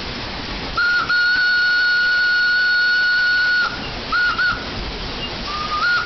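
Steam whistle of a WP class steam locomotive blowing: a short toot, then a long blast of about two and a half seconds, two quick toots, and a final toot that rises in pitch, over a steady hiss.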